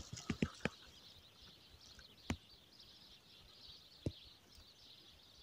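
Faint steady outdoor hiss, with a quick run of small clicks and crackles at the start and two single sharp clicks about two and four seconds in.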